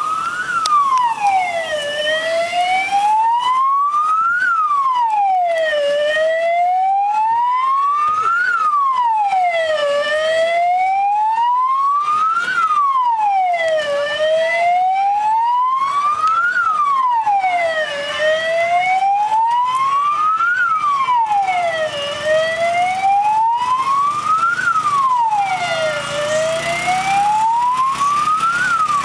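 Fire brigade vehicle's siren sounding a slow wail: the pitch rises over about two and a half seconds, falls back, and repeats about every four seconds.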